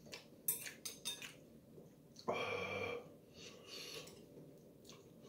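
Chopsticks clinking several times against a ceramic ramen bowl as noodles are stirred and picked up, then a loud breathy sound of under a second, a little after two seconds in.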